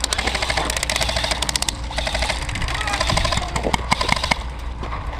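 Airsoft guns firing in several bursts of rapid full-auto clicks, about fifteen shots a second, with short breaks between bursts.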